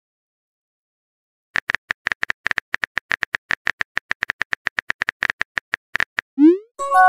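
Phone keyboard typing sound effect: rapid, even key clicks, about ten a second, for several seconds. Near the end comes a rising swoop and a short chime, a message-sent sound.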